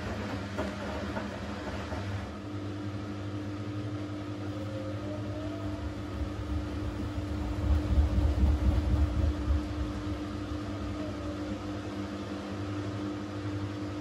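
Siemens washing machine running during its rinse and intermediate spin: the drum motor hums steadily, and a low rumble swells about halfway through, then settles.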